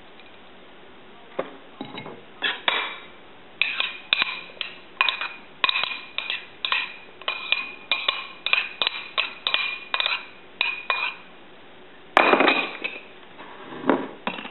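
A utensil repeatedly tapping and scraping a ceramic plate, about two ringing clinks a second, as chopped ingredients are pushed off it into a bowl. About twelve seconds in comes a louder clatter as the plate is set down on the counter.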